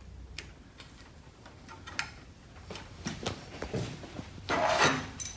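Scattered small clicks and handling noises from plugging in the treadmill's hand-grip connectors, with a louder brief rustle near the end.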